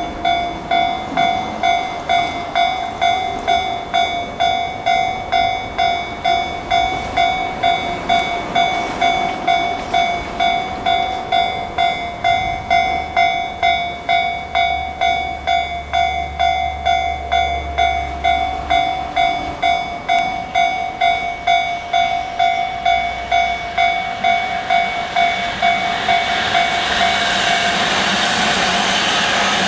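Japanese level-crossing electronic alarm of the Tobu Tojo Line type (Tobu sound C) ringing, a steady repeating two-tone ding a little faster than once a second. About 26 seconds in, the running noise of a passing Tobu Spacia express rises and covers the bell.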